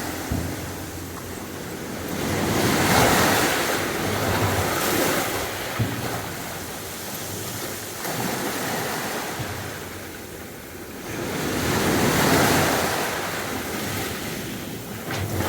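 Sea waves breaking and washing up the beach, with two surges about nine seconds apart that swell and then fade.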